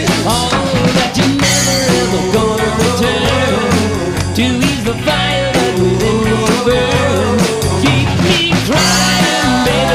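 Rock band playing with electric guitars, bass guitar and drum kit, with singing over it.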